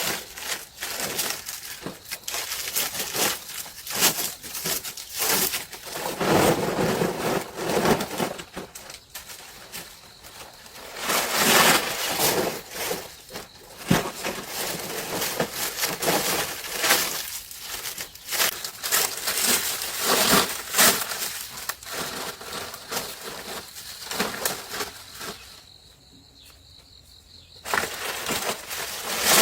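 Hand work with building materials: irregular crunching, scraping and knocking with scattered sharp clicks, dropping out briefly near the end.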